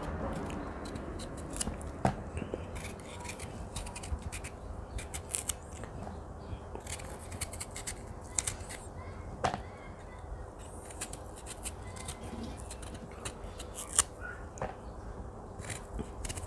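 Knife cutting the skin off a young, crisp mango: irregular sharp clicks and small cuts, several a second.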